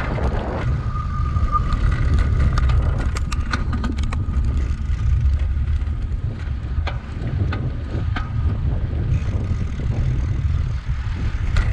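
Wind buffeting the microphone while riding a bicycle, a steady rumble, with scattered clicks and rattles from the bike jolting over a dirt path.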